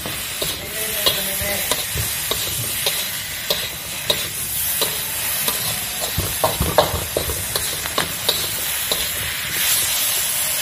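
Young durian pieces and anchovies stir-frying in oil in a wok: a steady sizzle, broken by frequent irregular clinks and scrapes of a metal slotted spatula against the wok.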